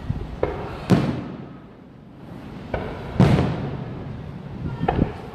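Aerial fireworks shells bursting: a string of booms, the two loudest about a second in and about three seconds in, each trailing off in a rolling echo, with sharper, smaller cracks between them.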